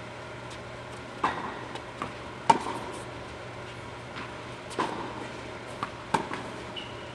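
Tennis ball struck back and forth by rackets in a doubles rally: four sharp pops, the loudest about two and a half seconds in, with lighter bounces between them, each echoing off the walls of an indoor tennis hall. A short squeak comes near the end.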